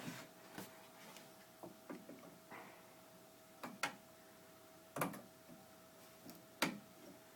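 Sharp clicks and taps of sewing machine presser feet and attachments being handled and tried on the machine, about eight scattered knocks, the loudest about five and six and a half seconds in.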